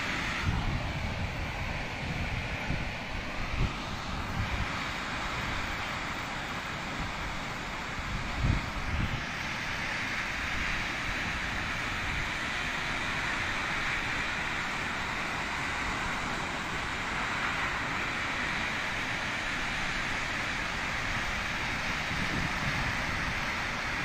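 Waterfall rushing in a steady, even roar with no rhythm. Wind buffets the microphone with low rumbles, strongest in the first few seconds and again about eight and a half seconds in.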